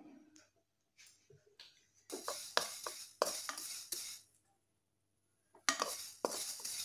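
Wooden spatula stirring and scraping sesame seeds around a dry metal kadai as they roast, the seeds rustling and clicking against the pan. It comes in two spells, with a pause of about a second and a half in the middle.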